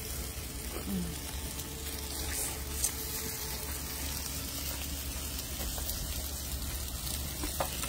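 Sliced onions, curry leaves and cumin seeds sizzling steadily in hot oil in a steel wok over a wood fire, with a few faint crackles.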